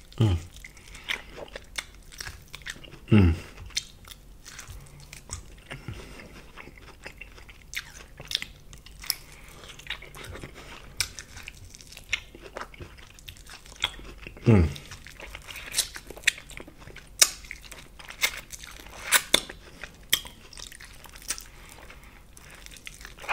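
Close-miked biting and chewing of short pieces of corn on the cob, with sharp crunches scattered throughout and a few wet mouth noises.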